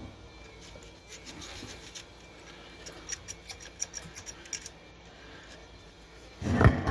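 Small clicks and rubbing of metal parts as a lacquer-cleaned, previously stuck typewriter platen shaft is worked in its hole, followed near the end by a sudden loud blast of compressed air.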